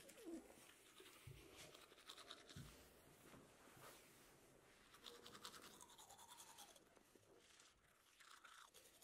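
Manual toothbrush scrubbing teeth: faint, rapid back-and-forth brushing strokes in two runs, with short pauses between.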